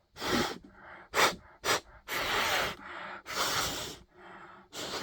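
A person blowing hard puffs of breath into the open laptop to clear out dust: about six blows, short ones and two longer ones of about a second each.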